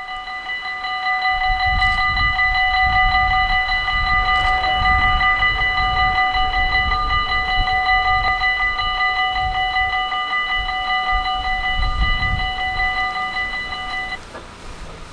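Dutch level-crossing warning bell ringing rapidly and steadily, the warning that the crossing is closing for an approaching train; it stops about a second before the end. A low, uneven rumbling noise runs underneath.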